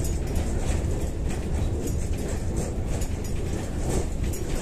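Kyiv-12.03 tram running at speed, heard from inside the car: a steady low rumble of wheels on rails with a hiss of rolling noise and faint light ticks.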